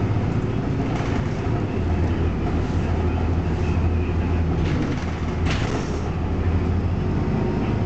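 Bus engine and road noise heard from inside the passenger cabin while driving, a steady low drone. A brief sharp noise sounds a little past five seconds in.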